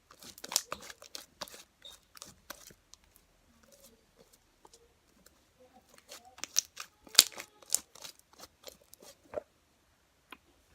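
Homemade slime being squeezed and stretched by hand, giving irregular sharp clicks and crackles in two bursts with a quieter gap between.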